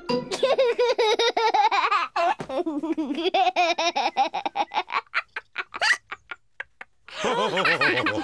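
Cartoon characters laughing heartily, in a long stream of quick laugh pulses. The laughs trail off into short separate bursts about five seconds in, stop briefly, then break out loudly again about seven seconds in.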